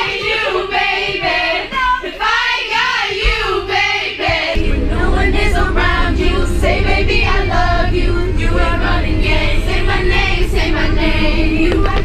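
A group of teenage girls singing loudly together. About four and a half seconds in, a steady low rumble sets in under the singing.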